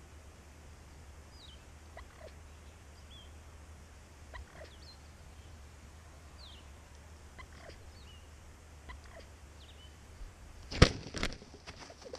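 A wild turkey gobbler gobbling once, loud and close, about eleven seconds in, with a shorter second rattle right after. Faint high chirps from small birds come and go before it.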